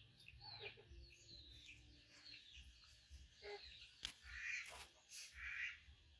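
Faint bird calls: short falling chirps, then from about four seconds in a series of harsh caws about a second apart, with a few sharp clicks among them.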